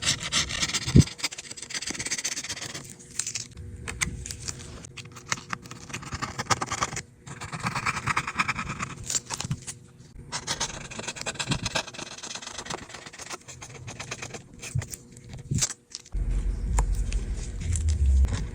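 Broken screen glass being scraped off an iPad's frame by hand, in irregular strokes with short pauses and scattered small clicks.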